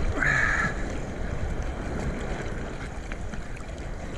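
Choppy sea water sloshing and splashing around a camera held at the waterline, with wind buffeting the microphone. A brief hiss of water about half a second in.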